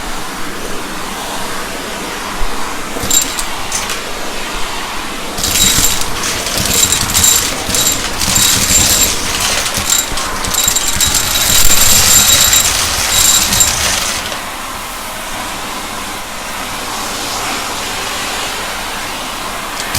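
Shark vacuum cleaner running steadily, with a louder stretch of crackling and rattling in the middle as it sucks up spilled debris from a mess test, over a high motor whine.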